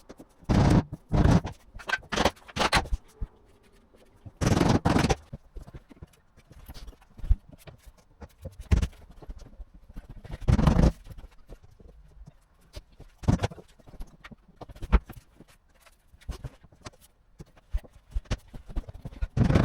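Laminate floating-floor boards being handled and fitted: irregular scrapes and knocks, each short, with quiet gaps between them.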